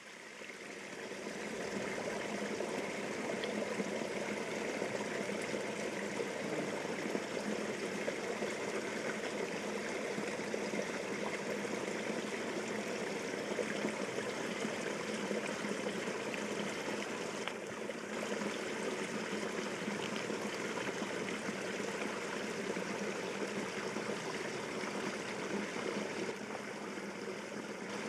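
Steady rush of flowing stream water, rising in over the first couple of seconds and then holding even.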